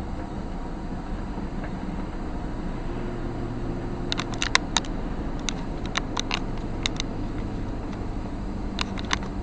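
Car driving along a road, heard from inside the cabin: a steady engine and tyre hum. Irregular sharp clicks come in a cluster from about four seconds in and twice more near the end.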